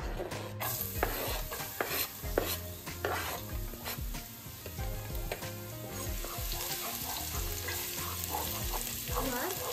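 Chopped garlic sizzling in hot oil in a saucepan, the sizzle starting about half a second in as the garlic goes into the pan. Knife taps and scrapes during the first few seconds as it is pushed off the chopping board, then stirring in the pan.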